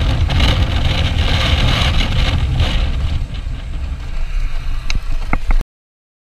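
Motorcycle running on the road with heavy wind rumble on the helmet-camera microphone. Near the end the bike runs off into roadside grass, with a few sharp clicks, and the sound cuts off suddenly.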